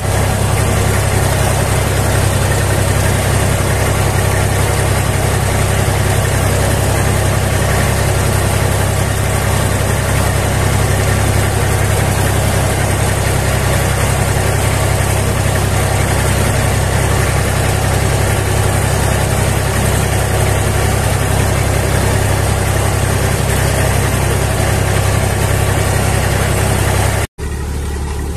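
Tractor engine running steadily under load while pulling a single-bottom mouldboard plough through the ground, heard close from the tractor. About a second before the end the sound cuts out for a moment and comes back quieter and duller.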